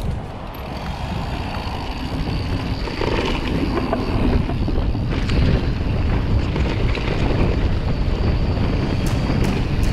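Wind rushing over the microphone of a helmet-mounted camera, with tyre rumble from a mountain bike riding over a wooden bridge and onto a dirt trail; it grows louder about three seconds in. A few sharp clicks come near the end.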